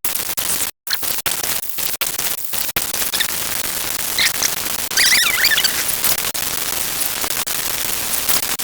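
Loud steady hiss of static-like noise, cut off briefly several times in the first three seconds, with a few high squeaky chirps about four and five seconds in.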